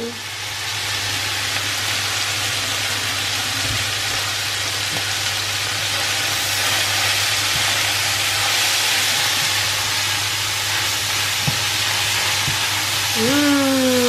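Cubes of beef dusted with flour sizzling steadily in a hot non-stick frying pan as they brown, with a few soft knocks of a spatula stirring them.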